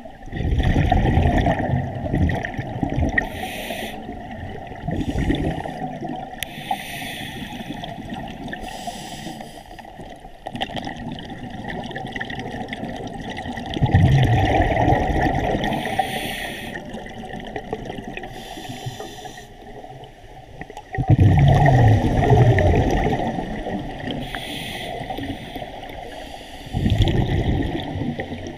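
Scuba diver breathing through a regulator underwater: loud bubbling bursts of exhaled air, the strongest at the start, about halfway, about three quarters through and near the end, with short faint hisses in between.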